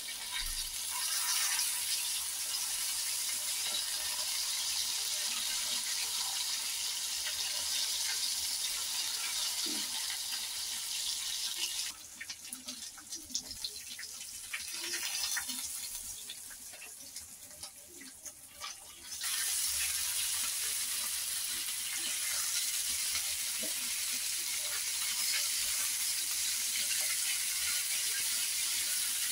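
Mutton boti kebabs on skewers sizzling in oil on a hot tawa over a medium flame, a steady hiss. For several seconds in the middle the sizzle drops away to a quieter stretch with light clicks, then the steady sizzle comes back.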